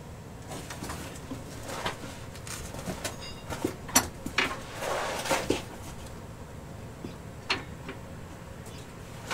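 Light metal clicks, clinks and short scrapes as a new driveline parking-brake shoe assembly, with its springs and mounting bracket, is worked into place by hand on the back of a truck's transmission. The sharpest clicks come about four seconds in and again near the end.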